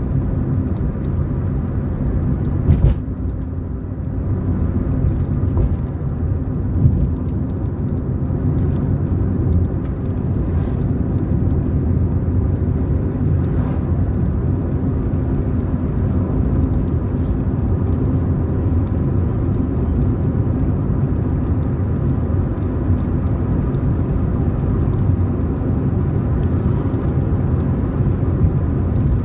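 A car being driven along a road: steady engine and road rumble, with a sharp knock about three seconds in and a lighter one about seven seconds in.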